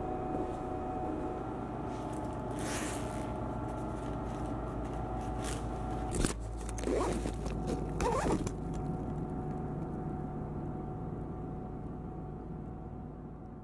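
Backpack zipper pulled in two short rasps, about seven and eight seconds in, after a click and some bag handling, over a steady hum that fades away near the end.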